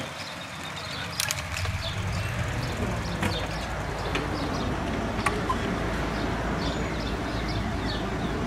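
Town traffic heard from a moving bicycle: a low steady rumble of car engines close alongside, which sets in about a second and a half in, with scattered sharp clicks and rattles from the bike.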